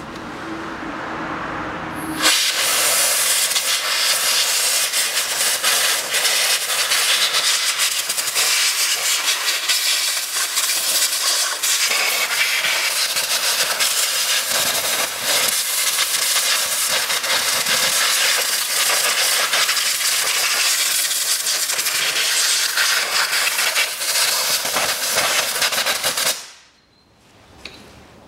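Compressed-air blow gun hissing steadily, blowing dirt and carburettor cleaner out from around the diesel injectors before they are pulled. It starts about two seconds in and cuts off sharply near the end.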